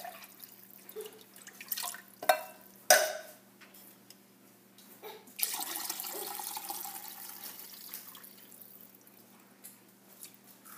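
Canned chicken broth pouring and splashing into a glass measuring cup, the stream loudest from about five and a half seconds in and then tapering off. Two sharp clinks come about two and three seconds in.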